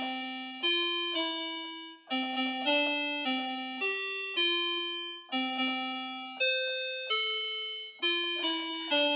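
Portable electronic keyboard played one note at a time with a single finger: a slow, simple melody in a piano-like voice, each note struck and fading before the next.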